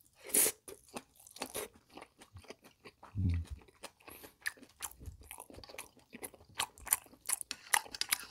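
Mouth sounds of a person chewing a bite of pork and kimchi from kimchi stew, picked up close to the microphone: many short wet smacks and crunchy clicks, with a short low hum about three seconds in.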